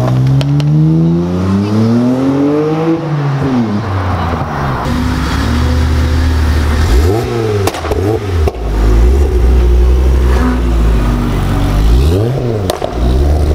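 A Nissan Skyline R33's engine revs up as it pulls away, rising for about three seconds and then falling. Then a Mk2 Ford Focus RS's turbocharged five-cylinder engine runs low and steady, with two quick rev blips, about seven and twelve seconds in.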